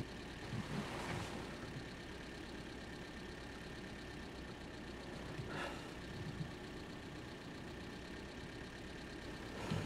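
Car engine idling, a quiet steady hum heard from inside the cabin, with one short faint noise about five and a half seconds in.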